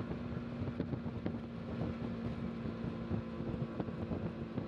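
Auto-rickshaw running along a road, heard from inside: a steady engine hum with frequent small knocks and rattles from the body, and wind on the microphone.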